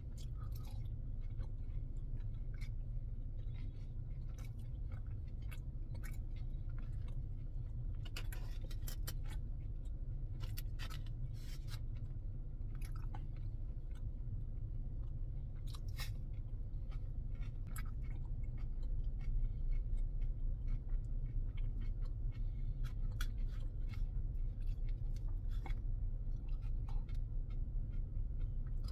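Close-miked chewing and mouth sounds of a man eating stir-fried shrimp, vegetables and noodles, with many small wet clicks scattered through, over a steady low hum.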